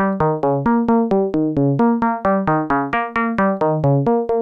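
Buchla Easel–clone complex oscillator playing a fast repeating sequence of short synthesizer notes, about five a second, each starting with a click. Its timbre sweeps brighter and darker as a self-cycling envelope generator modulates the timbre control.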